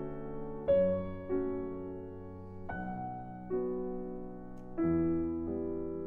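Background piano music: slow, gentle notes and chords, each struck and left to fade before the next.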